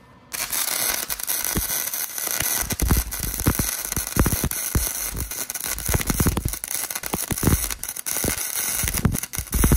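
Wire-feed welder arc running a bead on a steel truck bumper: a continuous crackle full of sharp pops, starting about a third of a second in. The arc is 'poppy' while still welding fine.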